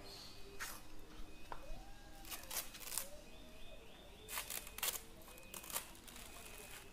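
Faint handling noises: about nine short clicks and rustles, scattered and irregular, with birds chirping faintly in the background.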